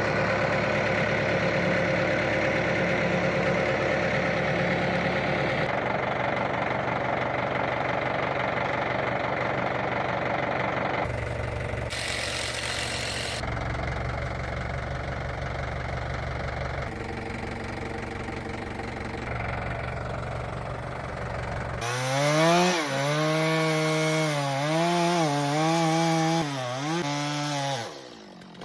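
Engine-driven machinery running, broken by several abrupt cuts. In the last few seconds an engine is throttled up and down, its pitch rising and falling repeatedly, before it cuts off just before the end.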